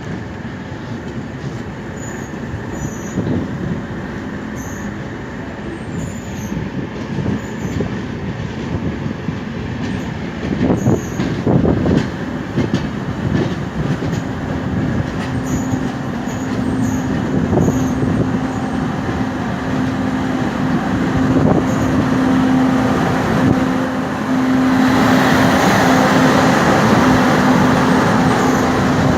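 An LHB passenger coach running along the track: a continuous rumble and clatter of wheels on rails, with a few heavy knocks near the middle. About halfway a steady hum joins in, and the noise grows louder near the end.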